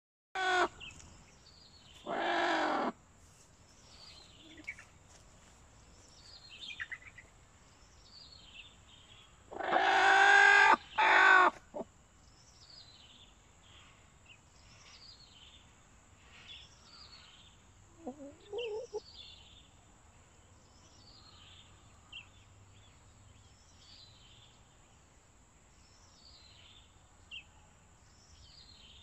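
Chickens calling: a few loud, drawn-out squawks, the longest about ten seconds in, and a lower short call a little before twenty seconds. Faint, high, falling chirps repeat about once a second throughout.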